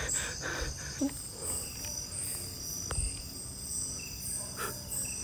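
Night insects chirping: a steady high-pitched trill with a repeating higher chirp over it. A single faint click comes about three seconds in.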